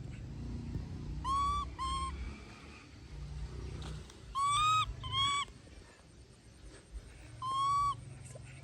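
A baby monkey's high, clear coo calls: a pair about a second in, another pair around the middle, and one longer call near the end, each with a slight upward bend.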